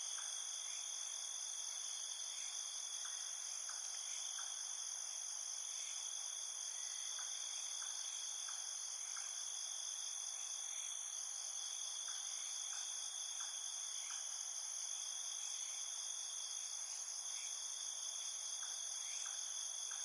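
Steady, high-pitched insect chorus: several continuous shrill tones layered together, unbroken throughout, with faint short ticks scattered through it.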